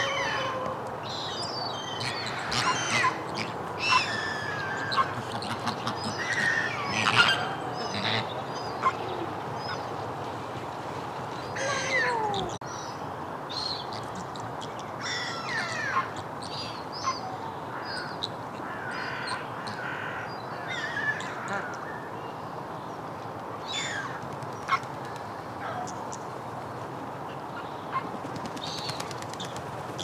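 A flock of Chilean flamingos honking and calling, with many short goose-like calls overlapping. The calls are busiest in the first ten seconds and more scattered after that.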